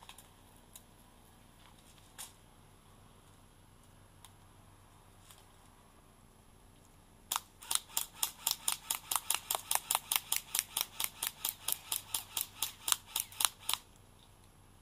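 Airsoft AK-47 replica firing a rapid string of BBs at fruit on a stone wall, heard as sharp clicks and cracks about six a second for roughly six seconds, starting a little after halfway. A few faint single clicks come before it.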